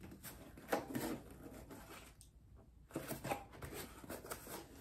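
Rustling, scraping and crinkling of a taped cardboard package being worked open, with short sharp clicks among the rustles and a brief pause a little past the middle.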